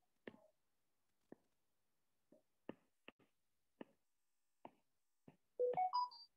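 Faint, irregular clicks of a stylus tip tapping and drawing on a tablet's glass screen, about one a second. Near the end a louder quick run of short electronic beeps at several different pitches cuts in.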